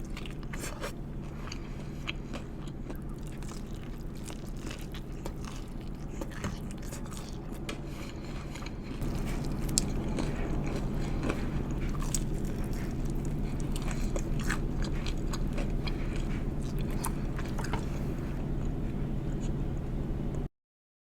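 Close-miked biting and chewing of sauced chicken wings, with many sharp crunchy clicks and wet mouth sounds over a steady low hum. It gets louder about nine seconds in, and the sound cuts off just before the end.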